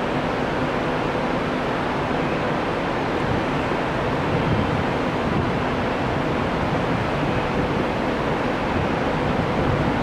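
Steady rushing rumble of a train approaching through a subway tunnel, still out of sight, with a few faint steady tones over the noise.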